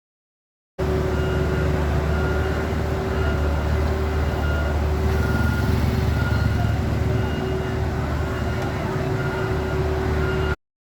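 Heavy road-construction machinery running: a steady low engine drone with a constant mid-pitched whine, and a high beep repeating roughly once a second. It cuts in about a second in and cuts off abruptly just before the end.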